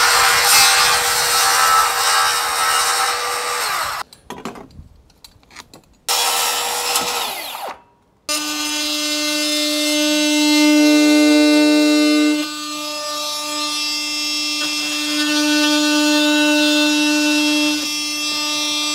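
Cordless rear-handle circular saw cutting a composite PVC deck board: one cut of about four seconds, then a second shorter cut that winds down. From about eight seconds in, a steady pitched hum runs on.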